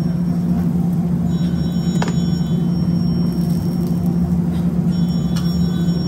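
A steady low hum in the kitchen, with two sharp clicks, about two seconds in and again near the end, as chopped tomatoes are dropped into a metal pot of onions and water.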